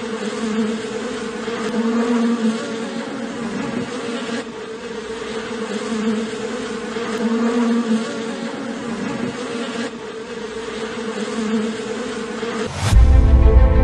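A cluster of honeybees on their comb buzzing steadily, a dense hum that swells and fades a little. Near the end a rising swoosh leads into loud music.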